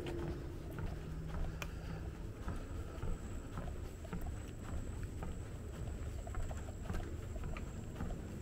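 Footsteps along a dirt trail, heard as an uneven low rumble with scattered small clicks on a handheld camera's microphone, and a faint steady high tone underneath.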